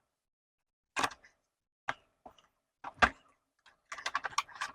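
A cardboard product box being opened and handled by hand: three separate clicks or knocks about a second apart, then a quick run of small clicks and rustles near the end.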